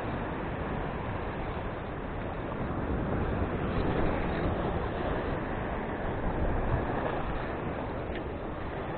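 Surf breaking against rocks below, a steady wash of water mixed with wind rumbling on the microphone.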